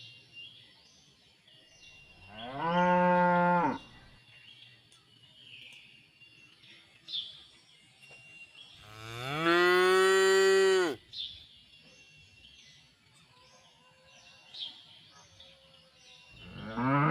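Cows mooing in a pen: three loud moos, the second the longest at about two seconds and rising in pitch as it starts, the third beginning near the end.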